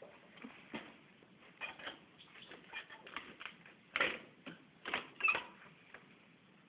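Ponies chewing hay: faint, irregular crunching and rustling with a few sharper crunches, the loudest about four seconds in.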